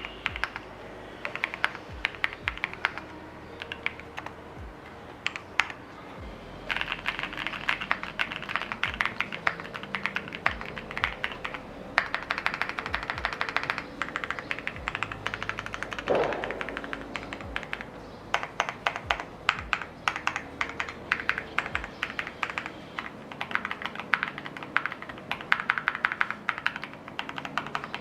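Typing on a TKD Cycle7 custom mechanical keyboard with lubed Vertex V1 switches on an FR4 plate and PBT keycaps. The rapid keystrokes come in bursts with short pauses, and one heavier stroke with a brief ring comes about sixteen seconds in.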